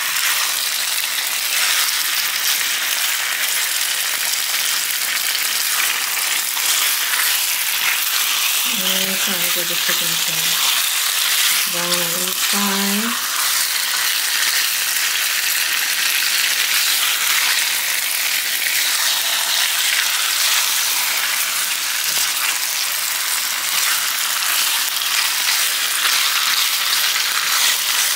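Thinly sliced chicken breast searing in hot oil in a pan, a steady loud sizzle. Two short low pitched sounds cut in near the middle.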